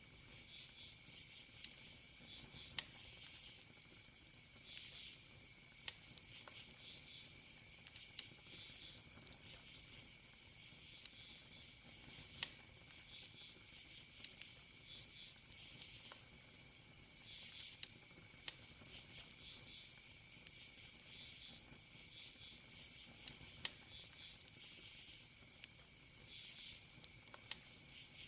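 Campfire wood crackling with sharp pops every second or so, over crickets chirping in short pulsed trills and a steady high insect drone.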